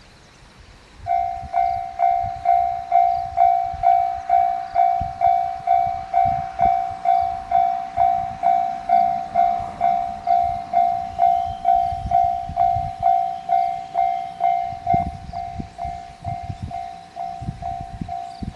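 Japanese railway level-crossing warning bell starting up about a second in, then ringing steadily at just under two dings a second, growing somewhat fainter near the end.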